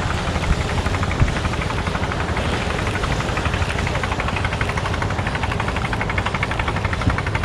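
A boat engine running steadily: a low rumble with a fast, even knocking that comes through more clearly from about three seconds in.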